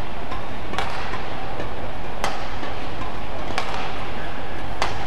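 Rackets striking a shuttlecock in a doubles badminton rally: four sharp hits, a little over a second apart, over steady background noise.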